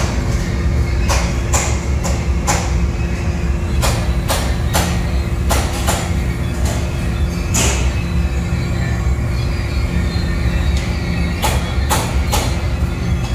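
Drum-carrying base conveyor running with a steady low rumble and a constant hum, with sharp metallic clanks and clicks at irregular intervals, roughly one every second.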